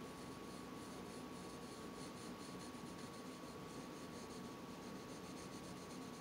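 Coloured pencil scratching faintly on a paper tile in rapid short shading strokes, several a second, applied with light pressure.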